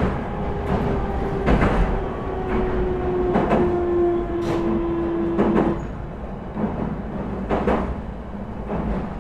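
Running sound inside a JR East E721 series electric train car: a steady rumble from the track with a few sharp clacks, and a motor whine that falls slightly in pitch and stops about six seconds in.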